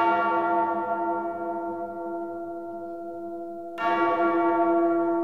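A deep bell struck twice, about four seconds apart, each strike ringing on with many steady overtones and slowly fading.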